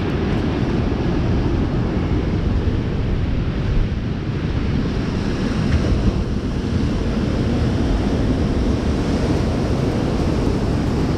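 Sea surf washing against a rocky shore, mixed with steady wind buffeting the microphone as a continuous low rumble.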